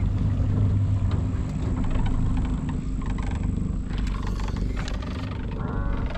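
Outboard motor of a small fishing boat running steadily underway, a low even drone, with wind and water rushing past.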